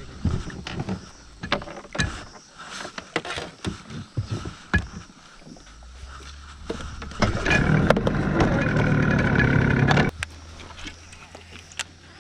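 Scattered knocks and clatter of handling in a small boat, then a loud whirring for about three seconds that starts and stops abruptly.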